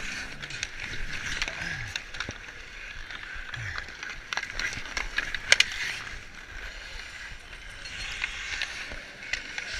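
Ice hockey skate blades carving and scraping across outdoor ice, close to the microphone, with occasional sharp clicks of sticks and puck.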